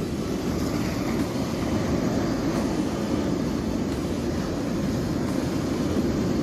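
Ocean surf breaking: a steady, even roar with no single wave crash standing out.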